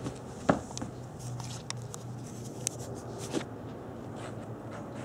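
Handling noise as a camera is set down on a carpeted floor: one sharp knock about half a second in, then a few light clicks and rustles that stop after about three and a half seconds. A steady low hum runs underneath.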